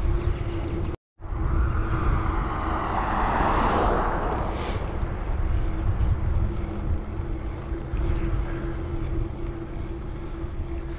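Wind buffeting a GoPro Hero 9's microphone, fitted with no windscreen, while riding a bicycle: a steady low rumble with a steady hum underneath. The sound cuts out completely for a moment about a second in.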